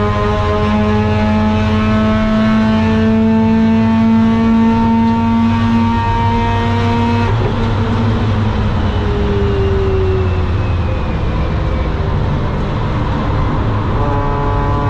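Mazda RX-8's two-rotor Renesis rotary engine, breathing through a long-tube exhaust, pulling under load, its note rising slowly. About seven seconds in the note breaks off into a rougher, less even sound, and a steady engine note returns near the end.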